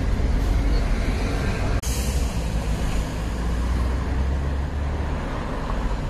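Street traffic with a heavy vehicle's engine rumbling low and steady. There is a brief dropout about two seconds in, followed by a short hiss.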